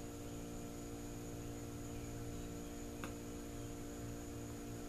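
Steady electrical mains hum, with a single faint click about three seconds in.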